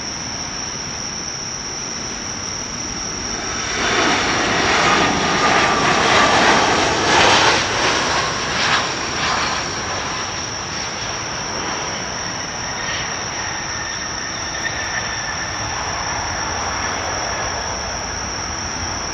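A jet airliner's engines on its landing roll: the noise swells about four seconds in, stays loud for several seconds with a whine in it, then fades back to a steady distant hum. Crickets keep up a steady high chirr throughout.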